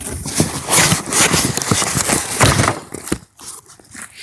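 Packaging being handled during an unboxing: loud rustling and clattering with many quick knocks. It drops to a few faint clicks about three seconds in.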